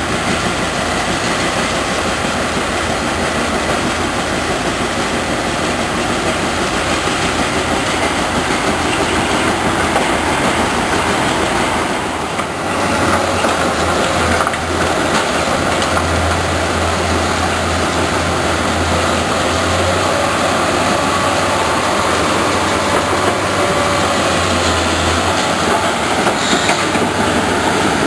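Nordberg mobile crusher running as it crushes brick and concrete demolition rubble: a continuous loud clattering rumble over its diesel engine. About halfway through, a deeper steady engine drone joins it.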